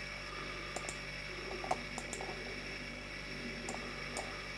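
A few scattered, light computer mouse clicks, about half a dozen, over a low steady hum.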